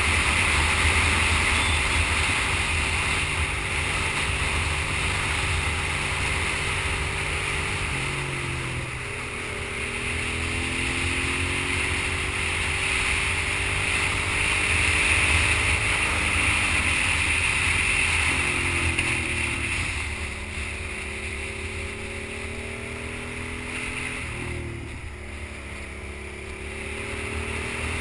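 Sport motorcycle engine at riding speed, heard from the bike with wind rushing over the microphone. The engine note drops sharply and then climbs again several times as the throttle and gears change through the bends, and it runs quieter for a while near the end.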